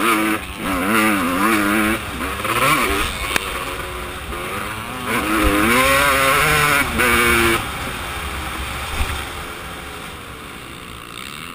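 Motocross bike's engine revving hard, its pitch climbing and dropping again and again with throttle and gear changes, heard close from the rider's helmet camera. About two-thirds of the way through the throttle eases off and the engine settles to a lower, quieter run that slowly fades.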